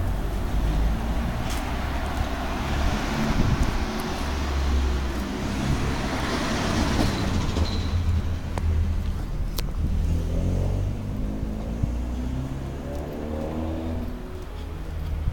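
Street traffic: a car passes with a broad swell of noise about six to seven seconds in, and later an engine revs up in a series of rising steps, over a steady low rumble.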